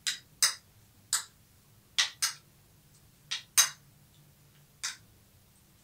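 A metal spoon clinking and scraping against a plate of cream fruit chaat while eating from it: about eight short, sharp clinks at irregular intervals, some in quick pairs.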